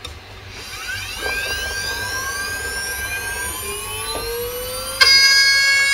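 Desktop CNC milling machine spindle whining, rising in pitch as it spins up. About five seconds in it turns suddenly louder into a steady high whine as the 1/8-inch four-flute end mill cuts the aluminum.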